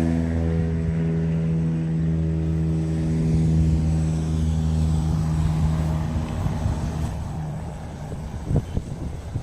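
Steady low engine drone that fades away over the last few seconds, with a couple of short knocks near the end.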